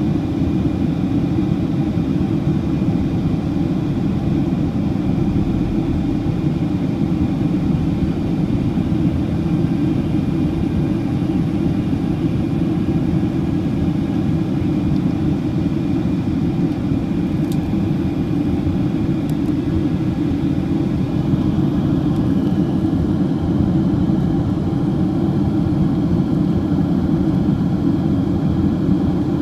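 Cabin noise of a Boeing 767-300ER in its climb, heard from a window seat beside the engine: a steady, deep rumble from its Pratt & Whitney PW4060 turbofans and the airflow, with a faint steady whine above it.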